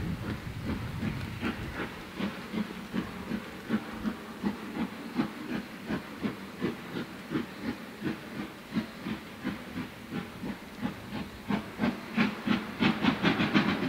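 Steam locomotive working hard under load: a regular rhythm of chuffing exhaust beats, about two to three a second, coming quicker and louder near the end.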